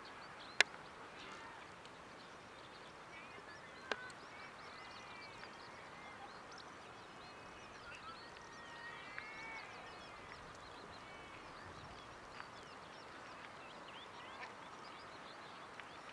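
Small birds chirping over an open field, with two sharp cracks about three seconds apart; the first, about half a second in, is the loudest sound.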